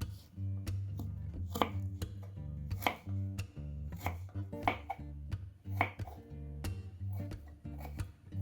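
Kitchen knife cutting food on a cutting board in separate, unevenly spaced strokes, about one a second, over background music.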